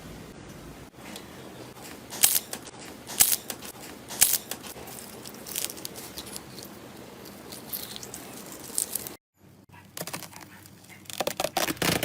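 Slime being squeezed and pulled by hand, giving irregular crackles, crinkles and sharp pops. The sound stops briefly about nine seconds in, then resumes with denser clicking.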